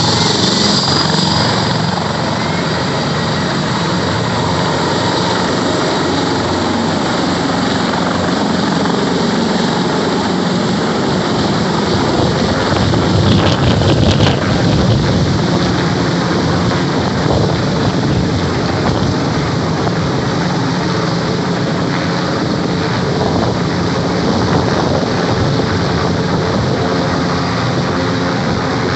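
Military transport helicopter's main rotor and turbine engines running loud and steady as it takes off and flies overhead. It is loudest about halfway through, when directly overhead.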